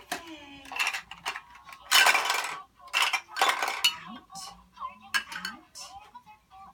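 Hard plastic toy pieces clattering and rattling against a plastic toy pot, a run of short clatters with the loudest about two seconds in.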